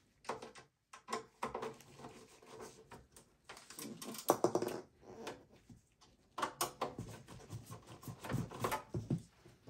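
Torx bit screwdriver backing out the screws that hold the power supply to an HP EliteDesk 800 G1's steel case: irregular scraping, ticks and clicks of the bit and screws on metal, in clusters about four, six and a half, and eight and a half seconds in.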